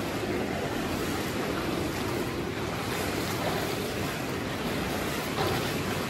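Swimming-pool water sloshing and splashing close to the microphone as a swimmer's strokes churn the surface, a steady wash of water.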